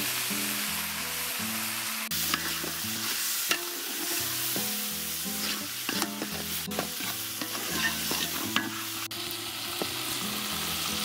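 Dal frying in a hot mustard-oil tadka with garlic, green chilli and cumin, sizzling steadily as it is stirred, with a few sharp scraping clicks from the spoon against the pot.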